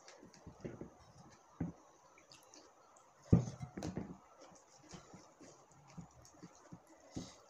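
Eating dal bhat by hand: soft chewing and mouth sounds and fingers mixing rice on the plate, a scatter of small clicks and squishes, with one louder thump about halfway through.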